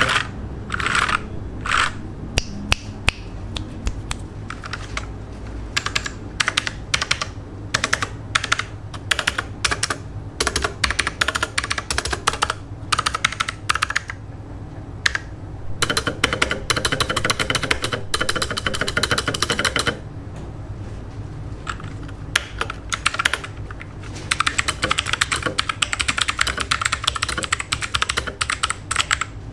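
Typing on a Rexus Legionare MX5.2 mechanical keyboard with blue switches: quick, quite noisy clicky keystrokes in flurries with brief pauses, fastest about halfway through and again near the end.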